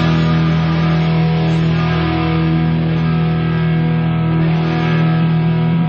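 Background music holding one steady sustained chord.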